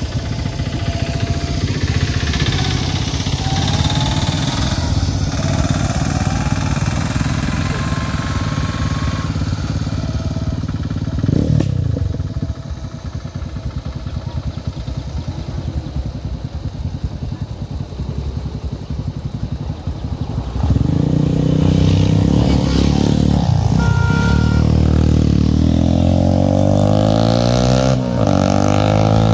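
Small vehicle engines idling. About two-thirds of the way through, a louder engine starts revving, its pitch rising and falling.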